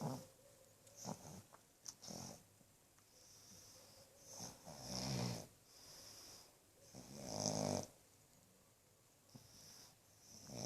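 Black pug snoring, one snore every one to three seconds with quiet breaths between, the loudest about halfway through and again a little later.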